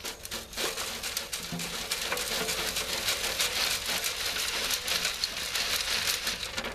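Soil being shaken through a round garden sieve (riddle): a dense patter of grit and earth rattling in the mesh and falling into a wheelbarrow, like rain on a surface.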